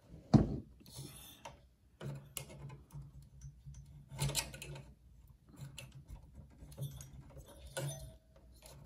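Metal screwdriver clicking and scraping against the Power Mac G4's heatsink spring clip and aluminium fins while prying at the stiff clip, with a sharp knock about half a second in and scattered clicks after.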